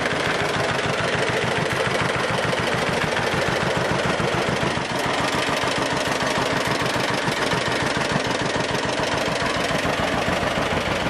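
1949 John Deere BW tractor's two-cylinder engine running steadily, with an even beat of firing pulses.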